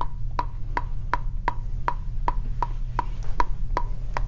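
Ping pong ball bouncing on a table tennis paddle: steady, even clicks, about three a second, over a low steady hum.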